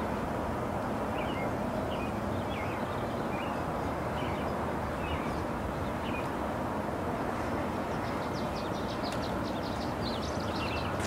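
Outdoor ambience: a steady low rushing noise with small birds chirping over it, short repeated chirps at first, then a quick run of higher notes near the end.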